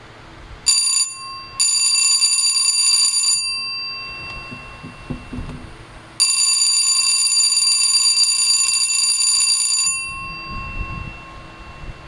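Edwards Company Adaptabel electric school bell ringing, freshly repaired and working again: a brief ring, then a ring of about two seconds, then a longer one of about four seconds, each stopping suddenly with the gong ringing on briefly.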